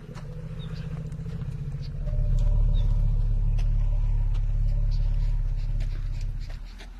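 An elephant's long, low growl that grows louder about two seconds in and stops near the end.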